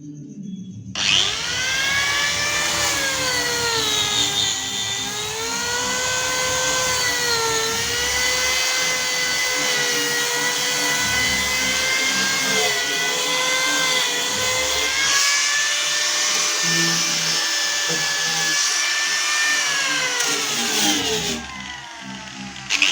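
Handheld electric power tool whining as it works wood. The motor starts about a second in, its pitch sags and recovers several times as it is pressed in, and it stops near the end. Background music plays underneath.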